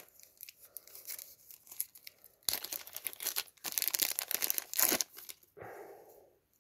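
Crinkling and rustling of a small clear plastic zip bag as fingers work it open to take out a magnetic snap clasp. It is faint at first, with a louder run of crackling in the middle.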